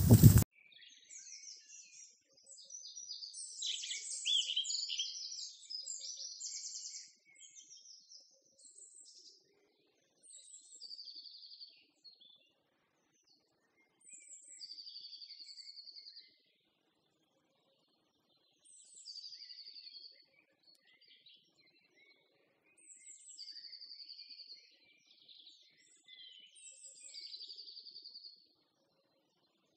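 Songbird singing: repeated short phrases about every four seconds, several ending in a steady high note, with a busier stretch of chirping between about three and six seconds in.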